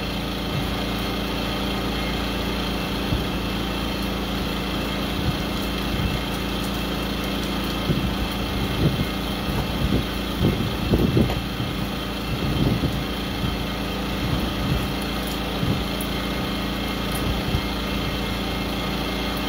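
A steady motor hum runs throughout, with scrapes and clinks of a serving utensil folding potato salad in an aluminium foil pan, most of them in the middle.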